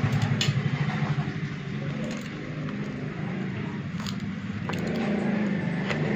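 An engine running steadily, with several sharp clicks over it.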